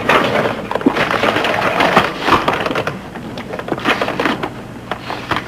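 Sheets of paper rustling and crackling as they are handled and shuffled on a desk, busiest in the first couple of seconds.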